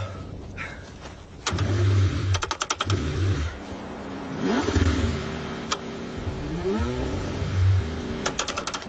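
Car engine cranking in repeated bursts, struggling to start in freezing cold, with a quick run of sharp clicks about two and a half seconds in and brief rising-and-falling revs.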